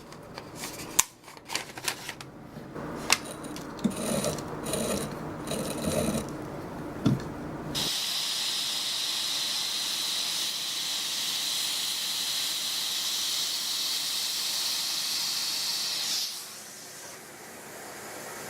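Small Taig benchtop lathe turning a hickory bushing. There are irregular clicks and knocks for the first few seconds, then a steady hiss of the tool cutting the spinning wood for about eight seconds, which stops well before the end.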